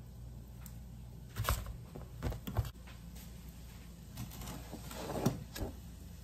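A few light knocks and scrapes of a plastic cutting board and a kitchen knife being moved and set down on a granite countertop, over a steady low hum. A cluster of knocks comes a second or two in and another near the end.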